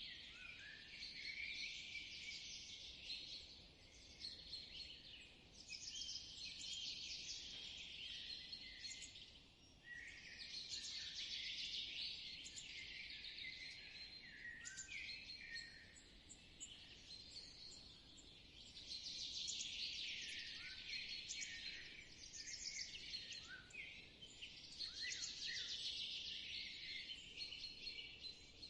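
Forest birdsong: songbirds singing fast trilling phrases that swell and fade every four to five seconds, with short chirps in between.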